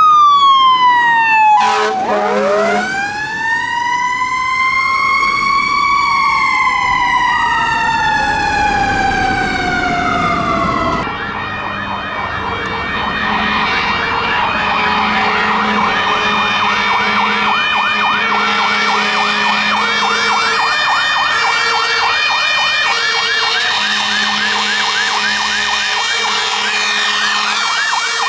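Fire engine sirens wailing: a slow wail falls, then winds up and back down over several seconds. About eleven seconds in the sound switches abruptly to a fast yelp warbling rapidly, with a lower tone pulsing on and off about once a second underneath.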